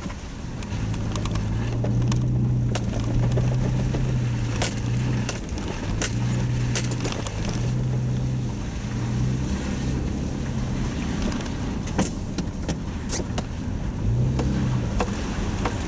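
Car engine running steadily while driving slowly, heard from inside the cabin, its low drone wavering slightly in pitch. Frequent light clicks and rattles sound over it.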